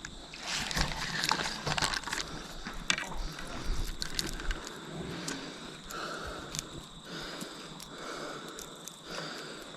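Fishing reel being cranked to retrieve a lure, with rustling and clicking handling noise in the first few seconds and a soft, fairly regular sound from the winding after that.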